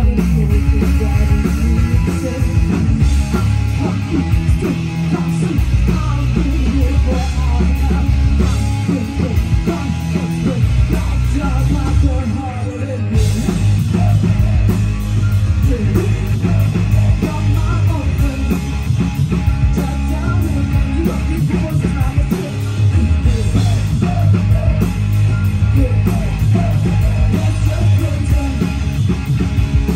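Live punk rock band playing loud: distorted electric guitars, bass guitar and drums, with a woman singing into the microphone.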